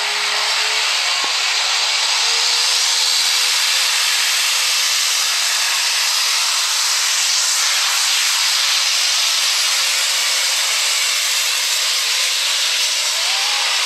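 Turbocharged super stock diesel pickup engine at full power while pulling a sled: a loud, steady hissing rush from the turbos and exhaust, with a faint engine tone underneath.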